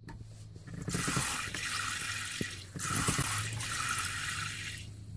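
Water spraying from a shower-style faucet head into a stainless steel sink, fed by a manual foot pump that is being worked by hand. It comes in two long surges with a brief dip between them.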